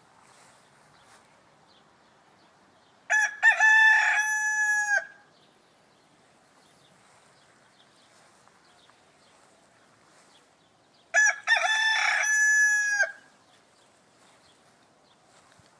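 Rooster crowing twice, each crow about two seconds long, the two some eight seconds apart.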